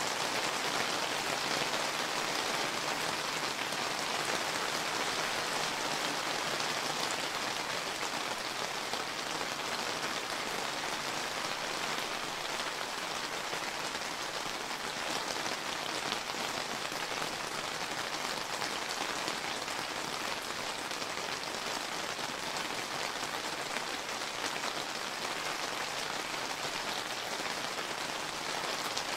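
Steady summer rain falling, a dense even patter of drops on surfaces.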